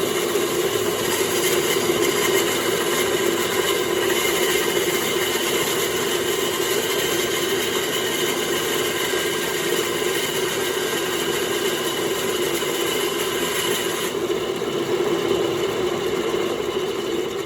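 Homemade bandsaw running during its first test cut: a steady hum with a hiss above it. The hiss drops away about three quarters of the way through.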